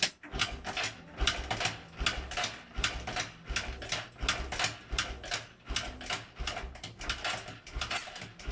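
Motorcycle kickstarter being kicked over again and again, the kick gear ratcheting and the engine turning over without firing, a little more than one stroke a second. The ignition is off: the engine is being cranked to send oil through the gears before its first start after long storage.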